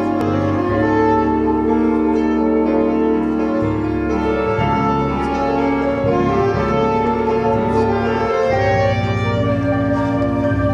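Instrumental music of sustained, layered chords over a held bass line that changes note a few times.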